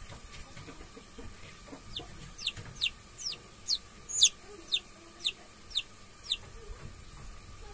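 Newly hatching Rhode Island Red chick peeping: a run of short, high peeps, each falling in pitch, about two a second, starting about two seconds in.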